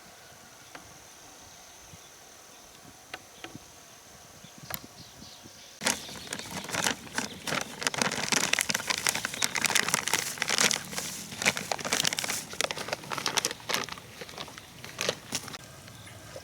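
A faint steady high insect buzz, then about six seconds in a dense, irregular crackling and crumpling of dry material that lasts about ten seconds.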